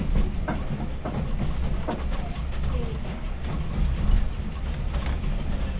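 Railway carriage rolling along the track, heard from inside the observation saloon: a steady low rumble with irregular knocks and clicks from the wheels over the rails, and indistinct passenger chatter.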